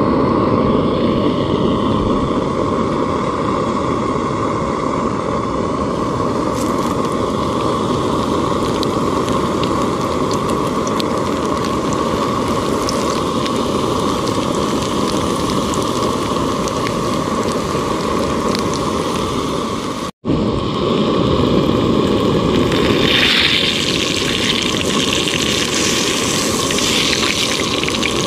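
Battered crappie fillets frying in hot oil in a steel pan: a steady, dense sizzle. It cuts out briefly about twenty seconds in and comes back brighter and hissier.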